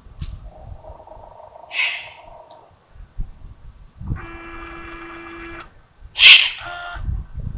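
Two raspy, hissing calls, the second one near the end the loudest, typical of Eurasian eagle-owl young begging. Between them a steady pitched tone sounds for about a second and a half.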